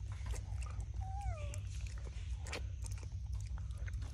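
Old pig-tailed macaque sucking milk from a small plastic bottle: irregular wet clicks and smacks of lips on the bottle, over a steady low rumble. A short whistle-like call glides down in pitch about a second in.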